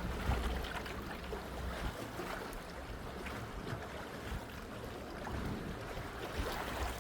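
Outdoor water and wind noise: moving water washing, with wind rumbling on the microphone, strongest in the first couple of seconds, and a few faint knocks.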